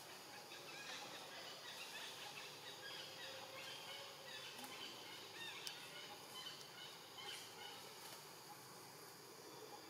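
Faint forest ambience: scattered short, bird-like animal calls over a steady insect hum.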